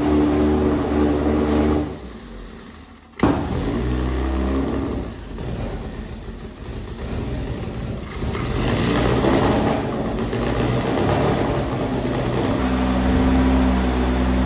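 Opel C20XE 2.0-litre 16-valve four-cylinder race engine with a reversed cylinder head running on a water-brake dyno, being run in under load. A steady engine note fades about two seconds in, a sharp click follows, then a rougher, noisier stretch before the steady note returns near the end.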